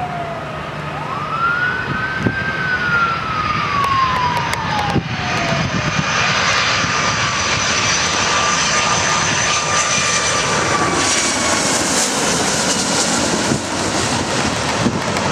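Boeing 757-200's twin Rolls-Royce RB211 turbofans as the airliner comes in to land: a whine that falls in pitch as it passes, then a steady rushing jet noise that grows louder partway through.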